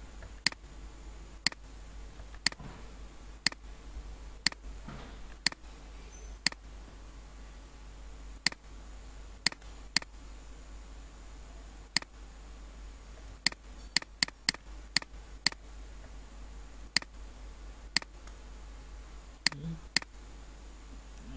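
Computer mouse buttons clicking, single sharp clicks at irregular intervals with a quick run of five or six about two-thirds of the way through, over a steady low hum.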